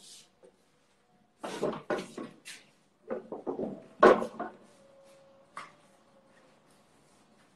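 A person moving about in a small room: two clusters of knocks and bumps, like furniture or a cupboard being handled, with the loudest knock about four seconds in. It then settles to faint room tone.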